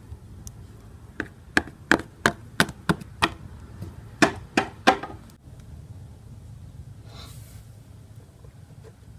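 Knocking on a hard surface: a run of seven quick knocks about three a second, then after a short pause three more.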